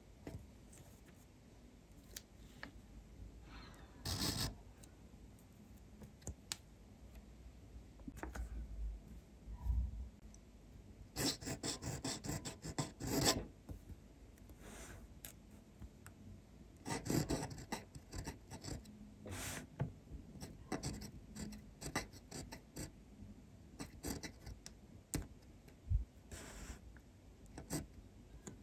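Graf von Faber-Castell Classic fountain pen nib scratching across paper as it writes cursive, in short bursts of strokes separated by pauses.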